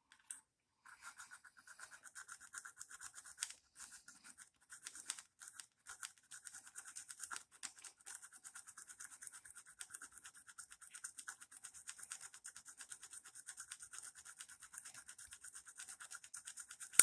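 A point file lightly rasping the breaker-point contacts of a 1964 Johnson 3 hp outboard in fast, even back-and-forth strokes, starting about a second in. The contacts are being cleaned and filed flat, because poor contact at the points is suspected of causing the misfiring.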